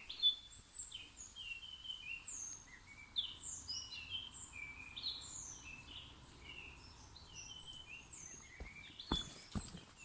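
Forest birds singing: many short chirping and whistled notes overlap at a quick, uneven pace. A few footsteps come in near the end.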